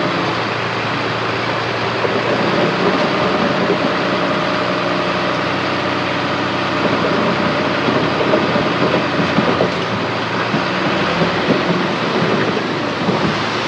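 Heavy diesel earthmoving machinery running under load: a steady engine hum at first, then dense, irregular clanking and rattling that gets louder about two seconds in.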